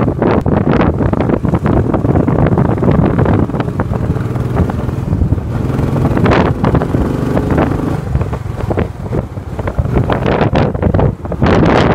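Royal Enfield Bullet 500's single-cylinder four-stroke engine running steadily as the motorcycle rides along, mixed with heavy wind buffeting on the microphone.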